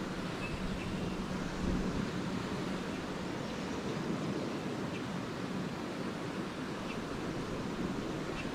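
Small lake waves washing steadily onto the shore, with a few faint, short swallow chirps scattered over the top.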